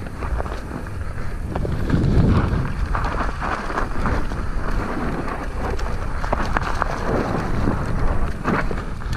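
E-mountain bike riding down a dirt trail strewn with dry leaves: knobbly tyres rolling over dirt and leaves, the bike rattling with frequent sharp clicks over bumps, and wind buffeting the microphone.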